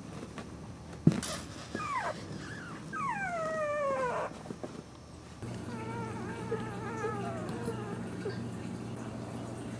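A puppy whimpers in a few high whines that fall in pitch, the longest about three seconds in, with a thump about a second in. Then newborn puppies squeal in a run of thin, falling cries.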